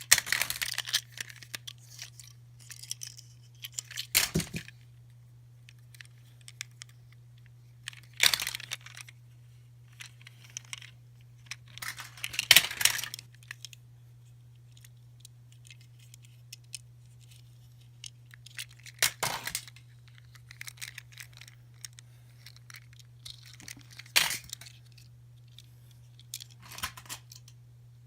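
Surprise eggs and small plastic toys being handled: short bursts of crinkling, tearing and clicking every few seconds, over a steady low hum.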